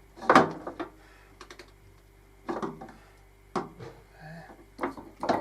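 A handful of separate sharp clicks and knocks, the loudest shortly after the start, as parts of a wood lathe are handled and adjusted.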